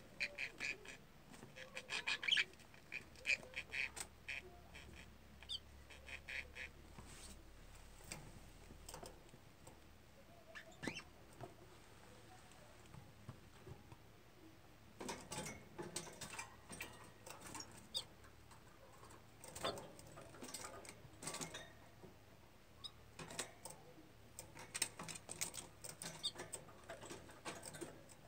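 Budgerigar in a wire cage: many small quick clicks and scratches of its beak and claws on the wood and wire, with a few short, soft, high chirps.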